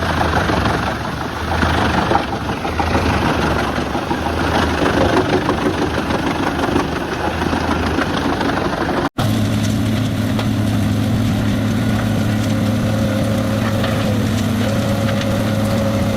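A wood chipper at work: a rough, uneven machine noise. About nine seconds in it cuts off abruptly, and a steady engine sound with a held pitch follows, from a Bandit Beast 4680 horizontal grinder running.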